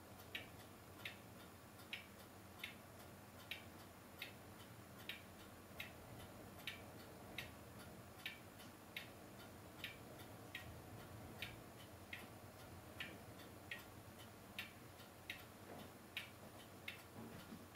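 Steady, even ticking, about three ticks every two seconds, over a low hiss.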